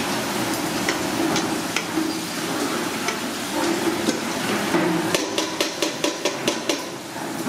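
Kitchen work over a steady hiss: scattered clicks of utensils, then a quick run of about ten sharp knocks, some four a second, a little past the middle.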